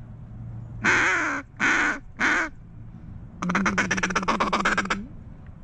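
Mallard duck call blown close by: three loud, drawn-out hen quacks about a second in, then a fast run of short clipped notes lasting about a second and a half, a feed-call chatter to draw in mallards.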